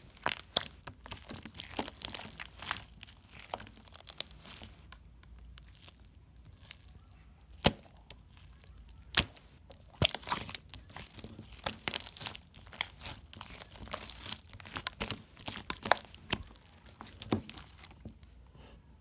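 Pink sequin slime being squished, stretched and folded by hand, giving irregular sticky clicks, crackles and pops. It goes quieter for a few seconds about a third of the way in, with only a couple of single pops, then the dense crackling resumes.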